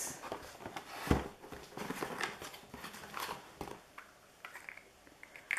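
A cardboard toy box being opened by hand and plastic playset parts being handled: a run of small clicks and rustles, with one sharper knock about a second in.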